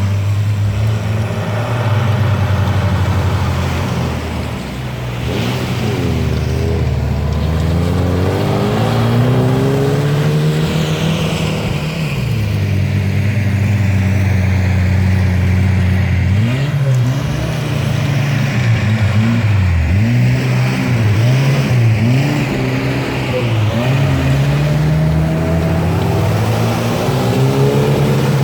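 A Lada Niva's engine works under load in sand, its revs rising and falling in long sweeps. About halfway through it turns to quick, repeated blips of the throttle.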